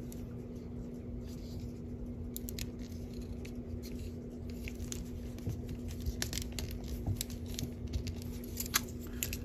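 Faint scattered clicks and rustles of a plastic action figure being handled and its joints posed, over a steady low hum.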